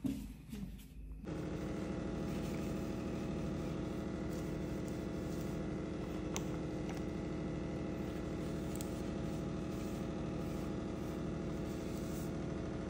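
A motor running steadily with an even hum. It starts abruptly about a second in and holds a constant pitch and level.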